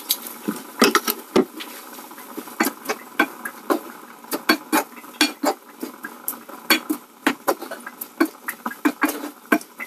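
Wooden spoon stirring broccoli in a non-stick frying pan, knocking against the pan in sharp, irregular clicks several times a second, over a faint steady hiss.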